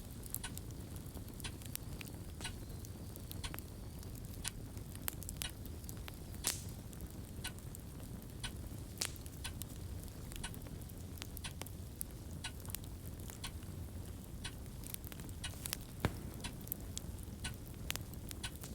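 Fireplace crackle: a steady low rumble of burning with irregular sharp pops and snaps, a few louder ones about six seconds in and near the end.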